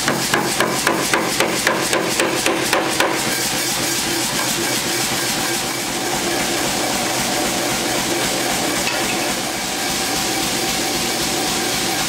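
Power hammer striking hot 3/4-inch square steel in a tong-forming die: about a dozen quick blows at roughly four a second, which then stop. A steady machine noise runs underneath throughout.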